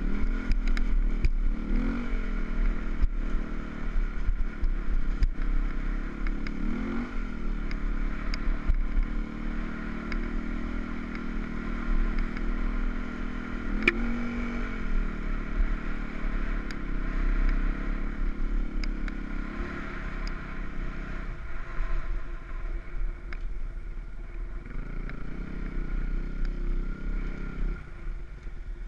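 Enduro motorcycle engine running as the bike is ridden along a rutted trail, the engine note rising and falling with the throttle several times, with scattered knocks and clatter from the bike over the ground.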